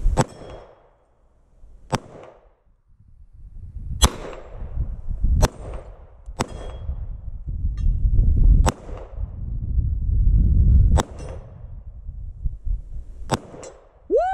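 9mm Glock pistol firing about nine single shots, one every one to two seconds, the last two in quick succession near the end. Wind rumbles on the microphone between shots.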